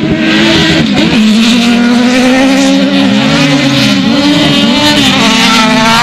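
Several autocross race car engines running hard at once, their pitches rising and falling and crossing one another as the cars accelerate and lift around the dirt track.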